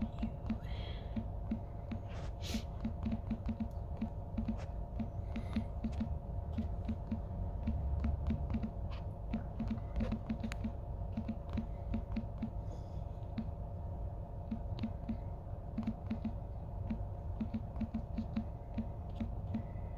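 Fingertips tapping on a phone's touchscreen, a few irregular taps a second, over the steady low rumble and hum of a car cabin.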